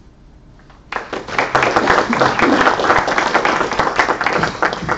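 Audience applauding: many hands clapping together, starting suddenly about a second in and dying away near the end.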